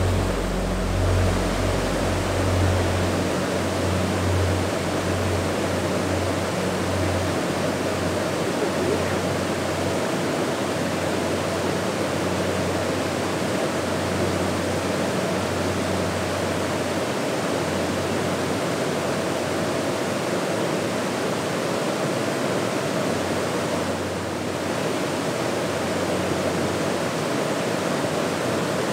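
River rapids rushing steadily over and between boulders, a continuous even roar of moving water.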